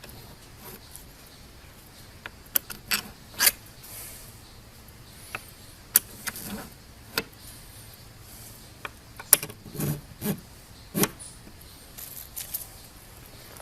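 Scattered metallic clinks, clicks and sharp taps from carriage bolts, washers and nuts being handled and fitted through a strap hinge, with no power tool running.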